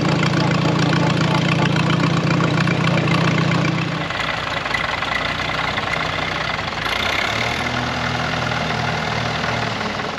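1945 Farmall B's four-cylinder engine running with no muffler fitted, a bit loud, as the tractor is driven along. About four seconds in it gives way to a quieter, different engine sound of a tractor idling.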